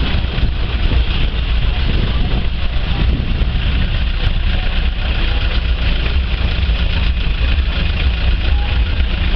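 Steady low rumble of wind buffeting the camera microphone, over a constant outdoor background hubbub with faint voices.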